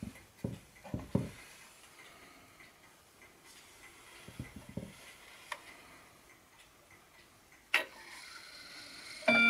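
Hermle 8-day mechanical wall clock being set by hand: a few soft knocks and clicks as the minute hand is pushed round, then a sharp click near the end as the hand reaches the half hour and the chime is released. The first bell-like chime notes start right at the very end.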